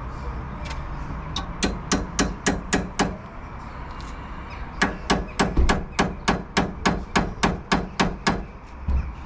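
A hammer striking metal repeatedly, about three or four blows a second, driving a bolt extractor socket onto a stuck bolt head that a normal socket slipped on. The blows come in two runs, about six, then after a short pause about fourteen more, with one last knock near the end.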